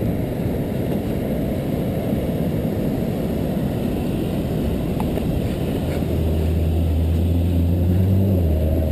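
Heavy wind rumble on the microphone as the camera moves across the open beach. About six seconds in, a small car's engine hum joins it, steady and then dropping in pitch near the end as the car comes close.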